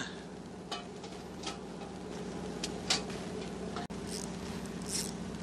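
Steady low machinery hum of a fishing boat at rest, with a handful of light clicks scattered through it.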